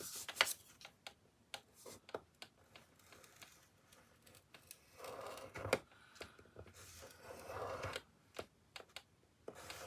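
Cardstock and craft tools being handled on a desk: a scatter of light clicks and taps, with a couple of brief paper swishes about five and eight seconds in.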